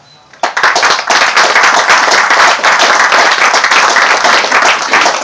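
Audience applauding, breaking out suddenly about half a second in and holding loud and dense.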